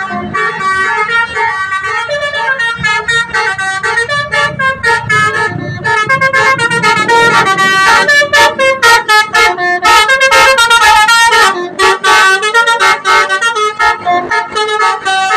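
A bus's Basuri multi-tone 'telolet' horn playing a fast melody. Its notes step quickly up and down in short, clipped blasts.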